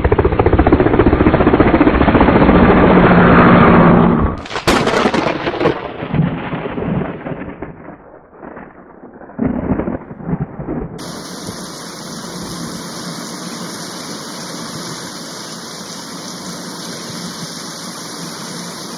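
Thunderstorm: a loud rumble for about four seconds, then a sharp thunderclap followed by rumbling that dies away, and from about eleven seconds in a steady hiss of rain.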